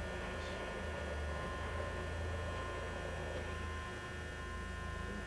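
Alzmetal AB4SV gear-driven heavy-duty drill press running at a very low spindle speed: a steady, quiet, smooth hum with faint steady higher tones above it.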